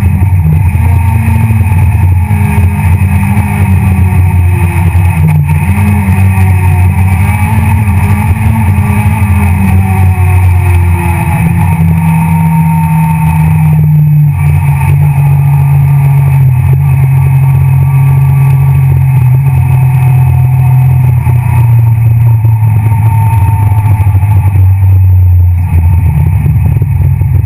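Citroën C2 R2 Max rally car's 1.6-litre four-cylinder engine heard loud from inside the cabin at full stage pace. It rises and falls in pitch for the first dozen seconds, then holds one long note that slowly sinks, and drops suddenly near the end.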